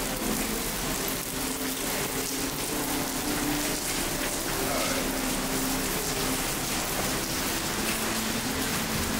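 Steady hiss of rain falling and splashing on pavement, even throughout, with faint low tones underneath.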